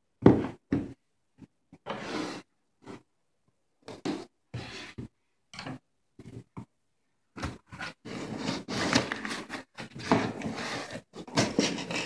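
Handling noises from unboxing a car speaker: a sharp knock just after the start, then short scrapes and rustles of the box and packaging, coming thicker in the second half. Dead silence falls between them.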